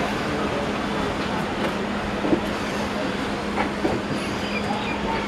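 Train rolling slowly along the rails while leaving a station: a steady rumble with a constant low hum and a few faint clacks and squeaks from wheels and couplings.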